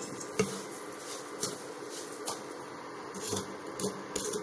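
A spatula stirring and scraping dry semolina and sugar in a nonstick kadai, with light knocks against the pan about once a second, over the steady hum of an induction cooktop.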